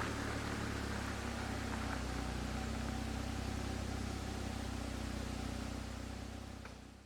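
Subaru R2 kei car driving: a steady low engine hum with road and tyre hiss, fading out near the end.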